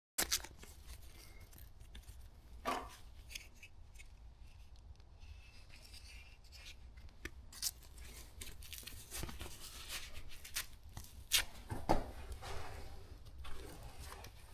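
Hand metal snips cutting the dash sheet metal: irregular sharp snips and clicks over quiet handling noise, busier in the second half.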